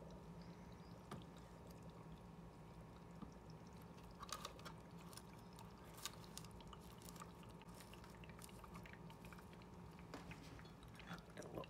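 Near silence: a faint steady hum, with a few soft clicks and small water splashes about four to seven seconds in as a hand works in the aquarium's back compartment.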